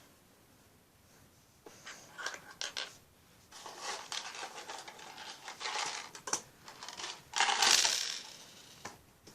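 Small plastic Lego pieces clicking and rattling as they are handled: a few light clicks about two seconds in, then a longer spell of rummaging with a louder clatter near the end.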